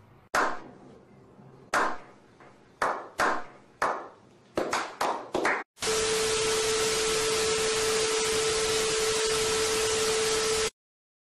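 A run of about nine sharp hits, several in quick succession, then about five seconds of loud TV-static hiss with a steady mid-pitched test tone through it, as a glitch transition effect, cutting off suddenly.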